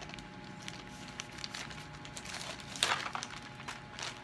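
Packaging crinkling as it is handled, with scattered small rustles and one louder crinkle about three seconds in.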